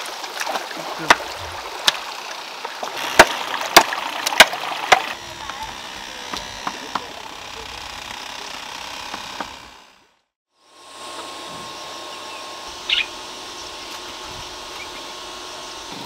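A run of sharp knocks and cracks over the first five seconds, over the steady rush of flowing stream water, which drops out briefly about ten seconds in and then carries on.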